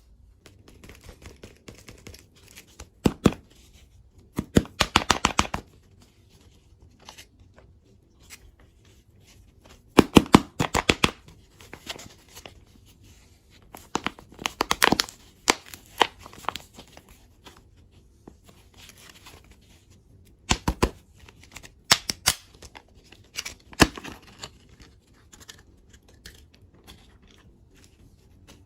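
Candy packaging being torn open and crinkled by hand, in bursts of sharp crackling with short pauses between them.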